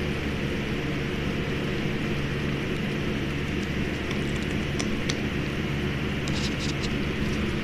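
A steady mechanical hum and hiss from a running machine, unchanging throughout, with a few faint, short, high clicks in the second half.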